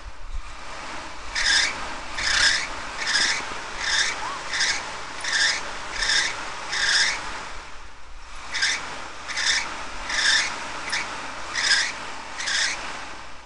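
Footsteps scuffing on dry grass and road grit at a slow walking pace, a short rasping scuff about once a second, pausing briefly about eight seconds in.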